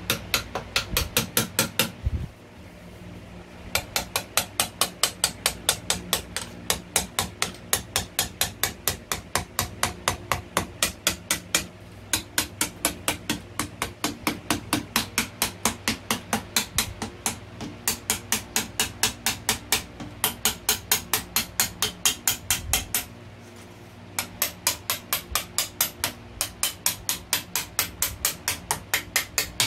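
Hammer striking metal in fast, even runs of about four to five blows a second, with short pauses between runs, typical of knocking parts loose during an engine stripdown.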